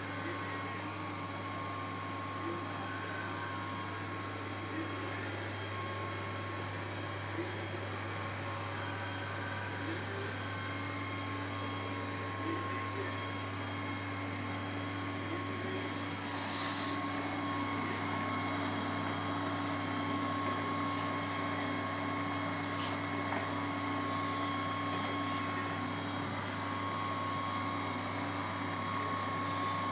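Robot vacuum cleaner running with a steady whirring hum, a little louder from about halfway through, with a short high hiss near the middle.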